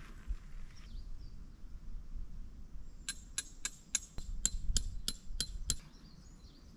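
A quick run of about ten light, ringing metallic clicks, about three a second, starting a few seconds in and lasting a little under three seconds, over a low rumble.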